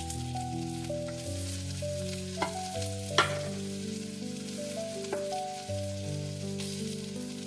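Food sizzling faintly in a frying pan, with three sharp clicks of a utensil against the pan, the loudest about three seconds in. A gentle background melody plays over it.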